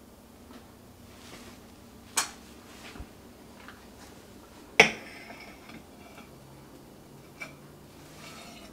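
Kitchen utensils and cookware clinking against each other in a few separate knocks: one about two seconds in, the loudest, with a brief ring, near five seconds in, and a lighter tap near the end.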